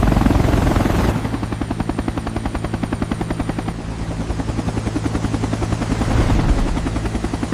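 Helicopter running, its rotor blades chopping in a rapid, even beat over a steady low hum. A louder rushing noise overlays it and cuts off about a second in.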